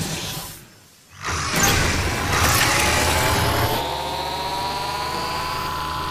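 A vehicle engine starting up as its throttle lever is pushed: a loud rush of noise about a second in, a rising whine, then a steady hum with a high, slowly climbing tone.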